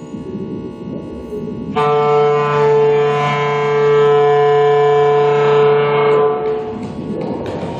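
Electroacoustic music for clarinet and tape. A low, shifting electronic texture gives way, about two seconds in, to a loud held note with many overtones over a low drone; it lasts about four seconds, then fades out near the end.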